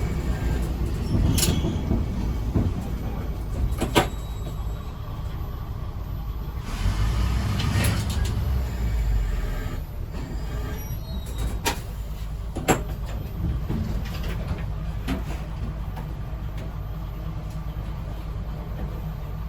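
Former JNR diesel railcar KiHa 205 heard from on board: a steady low engine and running rumble. Several sharp clicks and knocks are scattered through it, and a louder rushing stretch comes about seven to nine and a half seconds in.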